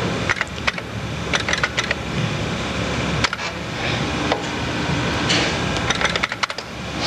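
Keys clicking on the Fairlight CMI's alphanumeric terminal keyboard over a steady mechanical whirr and clatter from the floppy disk drive loading a sequence.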